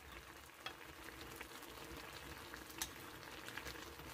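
Spicy braised chicken stew (dakbokkeumtang) simmering in a pan on a gas stove over lowered heat: a faint, steady bubbling with small pops now and then.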